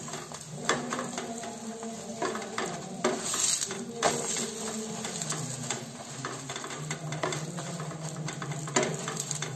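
Rice-flour roti sizzling in mustard oil in a nonstick frying pan, while a wooden spatula presses and scrapes it against the pan with irregular soft knocks.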